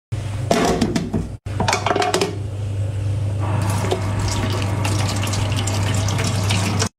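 Running water splashing, with knocks and clatter over a steady low hum. The sound cuts out briefly about a second and a half in.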